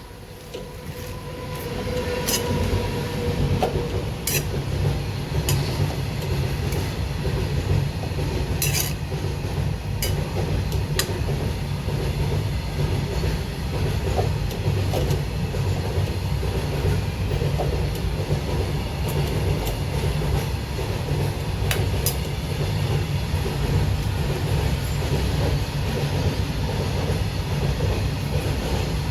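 A loud, steady low rumble like a motor running. It builds up over the first two seconds and then holds, with a few sharp clicks.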